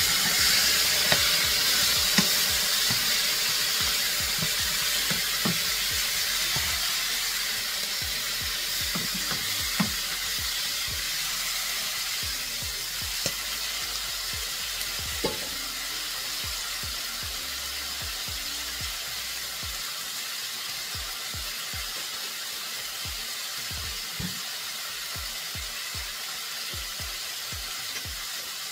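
Chicken pieces sizzling in hot vegetable oil in a sauté pan, with many small pops and crackles; the sizzle is loudest just after the chicken goes in and slowly dies down.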